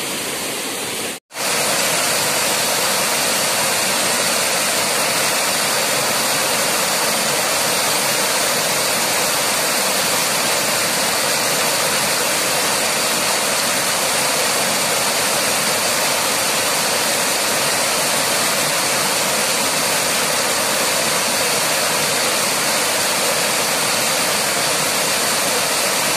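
Small waterfall pouring over a stone ledge into a pool: a steady rushing hiss of falling water. The sound cuts out for a split second about a second in, then carries on slightly louder.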